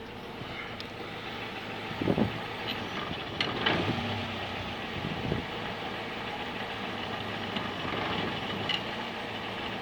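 Car moving slowly with the brake pedal lightly applied, over a steady engine and road noise, with a few irregular knocks from the front left wheel. The knocking comes from brake pads loose in the caliper, because the caliper's pad clip no longer holds them tight.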